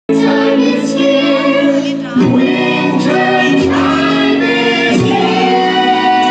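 A group of children singing together as a choir, with sustained sung notes.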